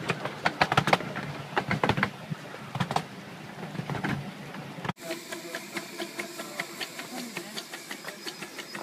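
Miniature railway train running along the track, its wheels clicking and knocking over the rail joints with a low rumble. About five seconds in the sound cuts to a steady hiss with faint voices, beside a miniature steam locomotive letting off steam at the platform.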